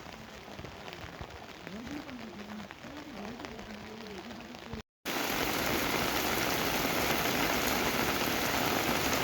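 Steady rain falling, lighter at first with a faint wavering tone in the background. After an abrupt cut about five seconds in, heavier, louder rain.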